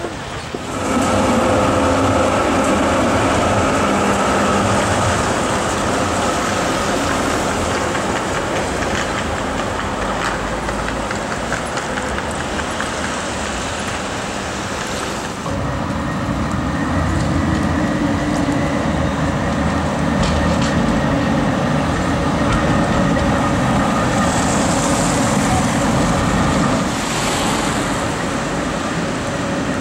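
Electric trams and street traffic on wet city streets: a steady rumbling hiss with a few steady whining tones. The sound rises sharply just under a second in and changes abruptly about halfway through.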